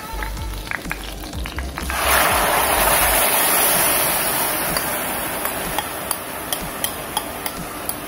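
Blended chili and garlic sambal paste hitting hot oil in a frying pan. A loud sizzle starts about two seconds in, then slowly dies down into scattered spits and pops as the paste begins to sauté.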